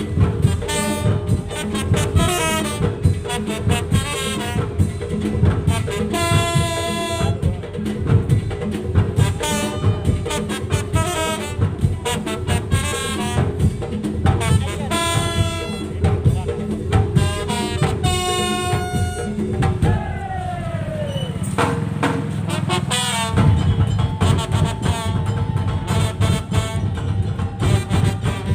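Madurese tong-tong (daul) ensemble playing: dense, driving drum and percussion rhythm under a loud, short-phrased melody. About twenty seconds in, the deep drums drop out under a falling glide, then the full beat comes back about three seconds later.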